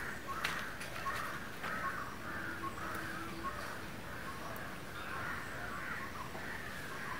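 Birds calling over and over, about one call every half second.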